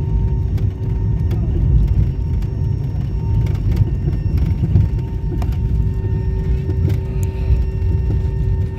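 Cabin noise of a jet airliner rolling on the ground after landing: a steady low rumble from the engines and wheels with a constant hum. Light clicks and rattles are scattered through it.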